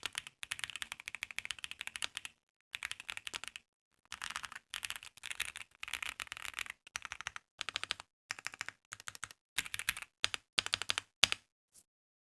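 Mechanical keyboard with original Holy Panda tactile switches being typed on. The keystrokes come in quick runs of rapid clicks separated by short pauses and stop shortly before the end.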